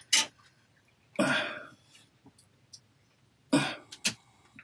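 A man's short, forceful breaths out, cough-like, as he strains with his hands. There is one just over a second in, and another about three and a half seconds in followed by a brief one. A short sharp click comes right at the start.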